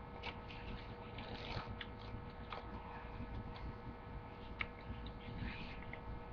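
Faint scattered clicks and short rustles, with a few sharper ticks, over a steady electrical hum.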